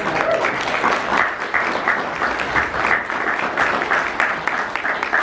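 Audience applauding for a few seconds, a steady patter of many hands clapping that fades out just after.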